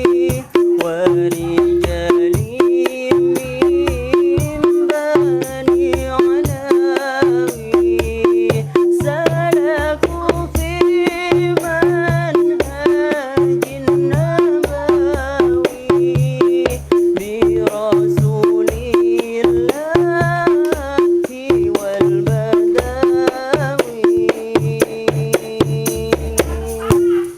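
Street buskers' sholawat music: a wavering melody over a steady held note, with rhythmic drum beats underneath. The music stops abruptly at the very end.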